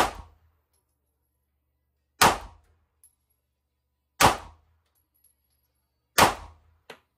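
Glock 43X MOS 9mm pistol fired four times in slow, steady succession, about two seconds between shots, each shot a sharp crack with a short echoing tail. A few faint clicks follow the last shot near the end.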